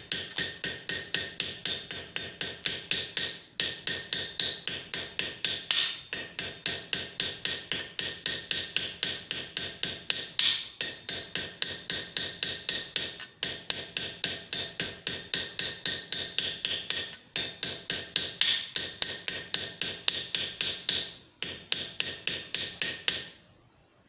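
Light blacksmith's hammer tapping a .50 BMG brass shell casing on an anvil, drawing in the neck. About five quick ringing blows a second, in runs broken by short pauses, stopping shortly before the end.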